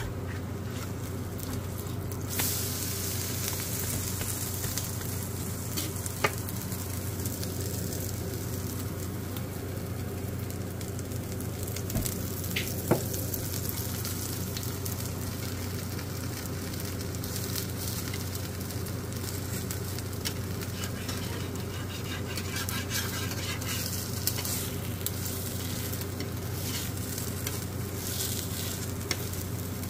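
Vegetable-and-potato paratha frying in oil on a flat nonstick pan, sizzling steadily over a low hum, with a few sharp clicks as the spatula works the pan.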